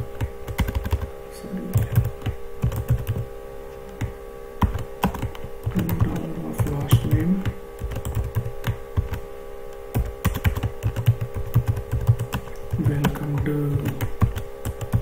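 Computer keyboard typing: quick, irregular runs of keystroke clicks, over a steady background hum.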